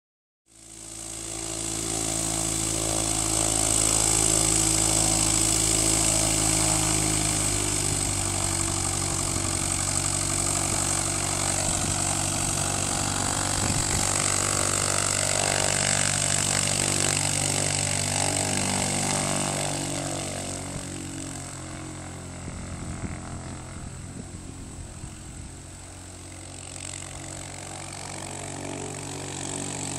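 Diamond DA40 single-engine light aircraft's piston engine and propeller running at low taxi power. It gets quieter about two-thirds of the way through as the plane moves off, then rises again near the end.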